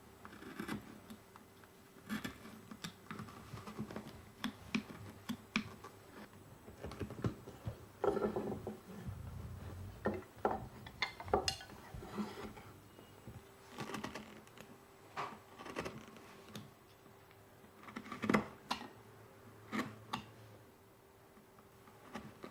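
Woodcarving finishing chisels cutting fine detail into wood by hand: irregular crisp clicks and short scraping strokes, one every second or so, with a cluster of louder cuts around the middle and again near the end.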